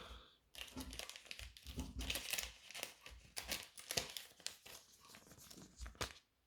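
Thin plastic crinkling and rustling in irregular crackles as trading cards are handled and slid out of plastic card sleeves.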